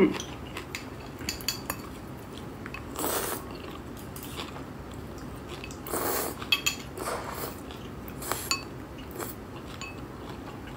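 Noodles being slurped from a bowl in about four short sucking rushes, with light clicks of chopsticks against the bowl in between.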